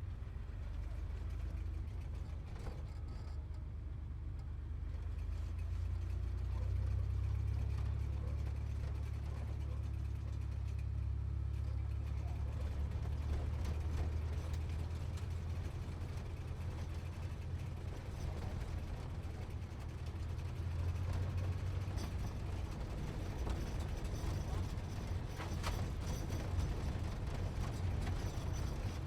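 Sports car engine running with a low rumble while driving, steady throughout, swelling a little about a quarter of the way in and again about two-thirds through.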